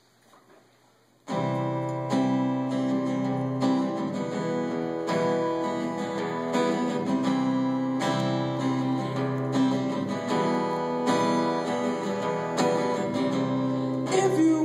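Acoustic guitar strummed in steady, repeated chords, starting suddenly about a second in after near silence.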